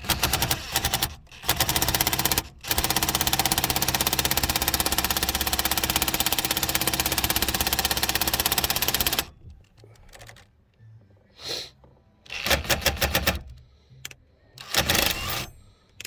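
Ratchet clicking rapidly as it turns the centre bolt of a steering wheel puller on a 1987 Cadillac Brougham's steering shaft. The clicking runs steadily for most of the first nine seconds, then comes back in two short bursts near the end.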